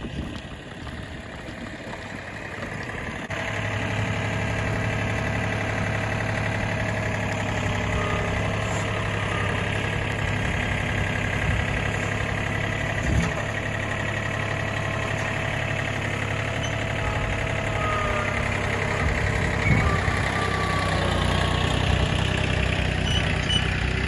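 A John Deere compact tractor's diesel engine running at a steady speed while it carries a log on its front-loader forks, with a faint knock or two.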